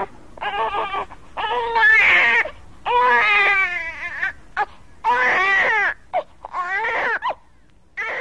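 A child crying and sobbing: a string of high-pitched wailing cries, each up to about a second long, rising and falling in pitch.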